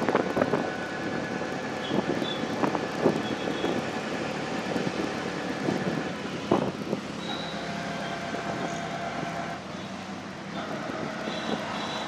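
Ride in an auto-rickshaw through city traffic: the rickshaw's engine running under steady road and wind noise, with a few sharp knocks. Between about seven and ten seconds in, a held tone from nearby traffic sounds over it.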